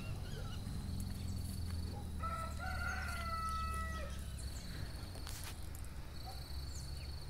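A rooster crows once, starting about two seconds in: a single drawn-out call of about two seconds that rises slightly and then breaks off. Underneath runs a steady low rumble, with a faint insect chirring.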